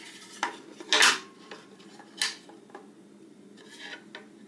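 Hard plastic parts of an electric toothbrush set clicking and knocking as they are handled and set down: a few separate clacks, the loudest about a second in.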